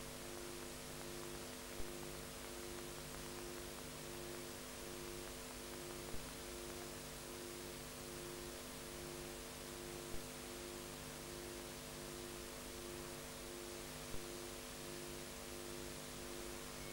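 Audio dropout on an old videotape transfer: steady hiss and electrical hum with a low tone pulsing regularly, and a faint tick about every four seconds.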